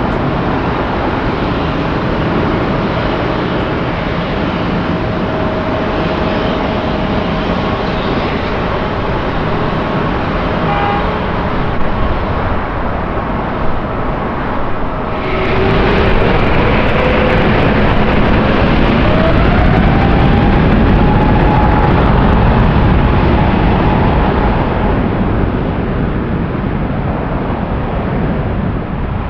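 Airbus A350-900's Rolls-Royce Trent XWB jet engines running at low thrust during taxi with a steady whine, then about halfway through spooling up: a rising whine that climbs for a few seconds and levels off as the engine noise grows louder.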